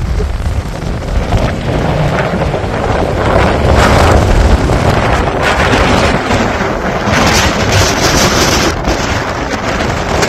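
Strong typhoon wind buffeting the microphone in gusts: a dense low rumble with hiss over the rough sea of a storm surge. A brighter hiss swells for about two seconds past the middle.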